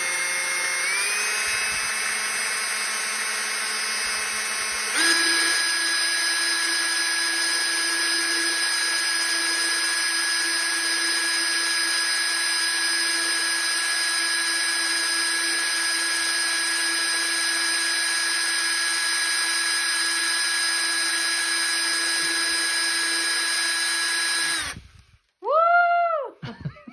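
Cordless drill running steadily, spinning a toilet-paper roll on its bit to wind paper onto it. Its whine steps up in speed about a second in and again about five seconds in, holds steady, then cuts off abruptly near the end, followed by a short rising-and-falling voice.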